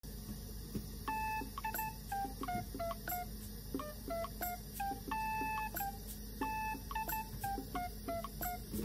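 Background music: a simple melody of plain, beep-like electronic notes stepping up and down over a light, regular ticking beat.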